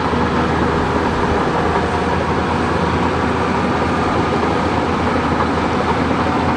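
Steady, noisy engine-like rumble of a heavy vehicle sound effect, which goes with the toy bulldozer.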